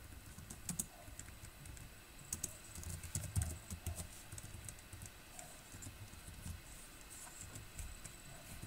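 Computer keyboard typing: faint, irregular keystrokes in short clusters with pauses between.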